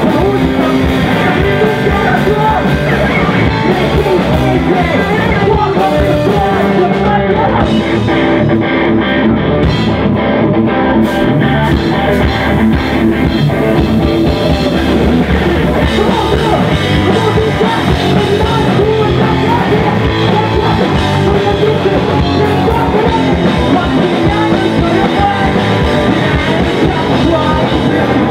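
Live punk rock band playing loud: electric guitar, bass guitar and drum kit, with a vocalist singing into a microphone.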